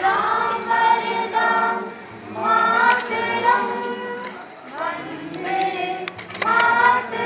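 A small group of men and women singing together into a microphone, in about four sung phrases with long held notes and short breaks between them.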